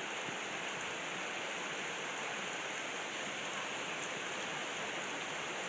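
Heavy rain pouring down, a steady even hiss of drops hitting the ground.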